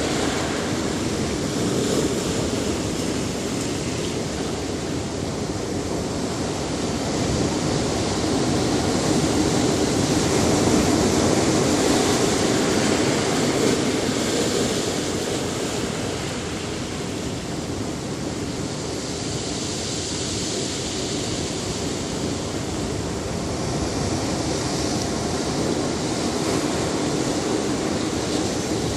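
Ocean surf washing onto a beach: a steady rush of breaking waves that slowly swells and eases, loudest about ten seconds in.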